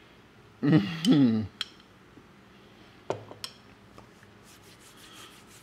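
A man's short wordless voiced sound, sliding in pitch, as he tastes ice cream off a spoon, about a second in. Then a few sharp clinks of a metal spoon against the bowl around the middle.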